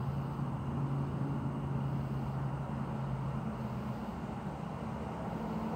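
Steady low rumble of outdoor background noise, with a low hum that stops about four seconds in.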